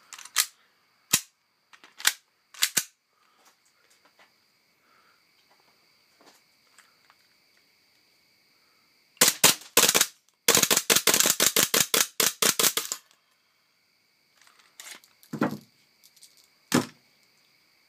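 WE-Tech M&P9 gas blowback airsoft pistol: a few mechanical clicks of the magazine and slide, then sharp gas shots about nine seconds in, followed by a rapid string of about a dozen shots over two and a half seconds, the semi-auto pistol running on full auto as a fault. Right after, the owner finds the BBs aren't feeding.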